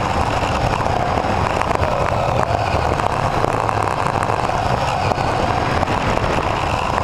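Onboard sound of a racing Mini-class RC car: the electric motor and gears whine steadily, the pitch wavering slightly as it speeds up and slows through the corners, over a rattle and rumble from the chassis and tyres on the carpet track.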